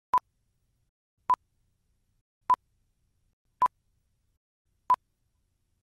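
Film-leader countdown beeps: five short, identical tone beeps about a second and a quarter apart, one for each number from five down to one, with silence between them.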